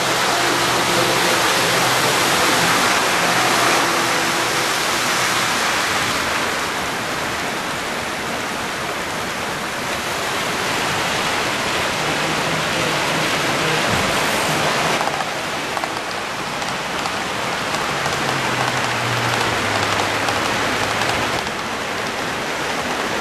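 O scale model trains running on a layout: a steady rushing noise of wheels rolling on the rails, with a faint low hum under it, changing in level and tone a few times.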